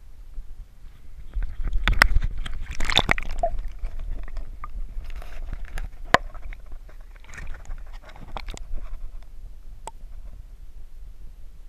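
Water sloshing and knocks against an action camera's waterproof housing as it is dipped into river water, with a muffled underwater rumble. A noisy burst of splashing about two to three seconds in is the loudest part, followed by scattered knocks and clicks.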